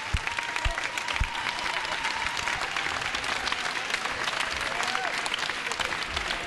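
A group of people applauding: dense, steady clapping of many hands.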